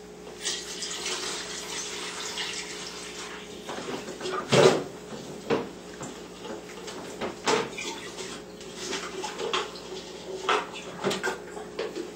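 Water poured from a jug into a large glass jar, splashing in as it fills, with several short knocks and clinks in between.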